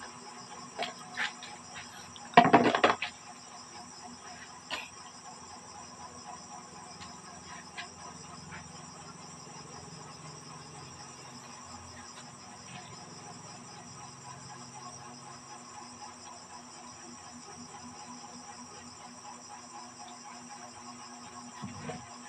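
Steady chorus of crickets trilling, with a few light clicks and one loud, short clatter about two and a half seconds in.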